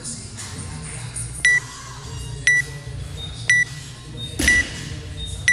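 Workout timer counting down to the start: short, high, identical beeps once a second, five in a row.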